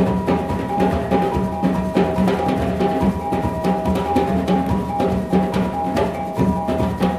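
Indigenous Filipino gong-and-drum music: hanging gongs ring a repeating pattern of a few fixed pitches over steady drumming.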